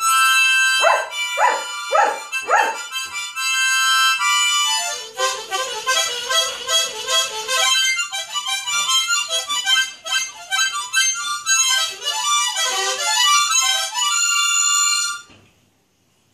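Harmonica playing, with held chords and then a long run of quickly changing notes, while a German shepherd howls and whines along, with several short rising howls about a second in. The sound cuts off about a second before the end.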